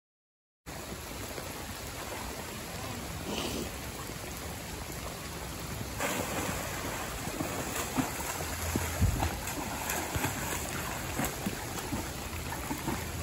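Steady rushing of a flooded, fast-flowing creek, starting abruptly less than a second in, with a few faint knocks in the water.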